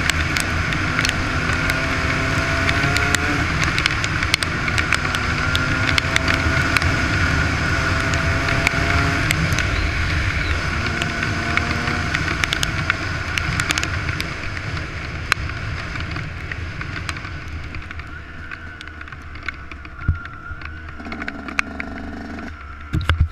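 Yamaha YZ125 two-stroke single-cylinder engine pulling hard through the gears, its note rising in repeated pulls over a loud rush of wind on the helmet camera. A little past halfway the rider eases off and the engine note falls away as the bike slows, with scattered sharp ticks throughout.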